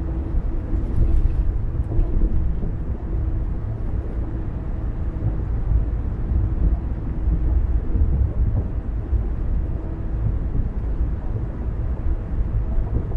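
A car driving at steady speed: a continuous low rumble of tyres on the road and engine, with a faint steady hum above it.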